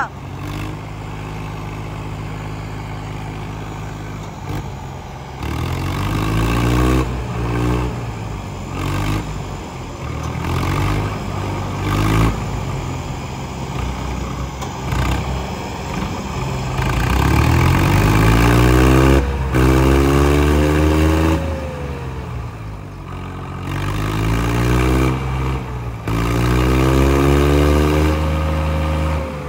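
Two diesel tractor engines labouring at high throttle as they pull against each other, their revs climbing and dropping again several times, most strongly in the second half.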